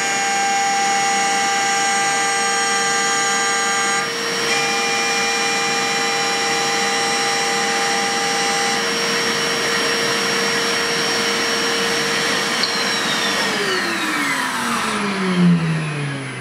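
The 4-pole spindle of a DIY CNC milling machine driving a solid carbide end mill through C45 steel: a steady high whine over the noise of the cut, with a brief dip about four seconds in. Near the end the cutting stops and the spindle winds down, its whine falling steadily in pitch.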